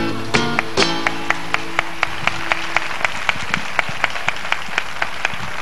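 Flamenco guitar closing the piece with two strummed chords that ring out and fade, under applause with sharp claps in a steady beat of about four a second.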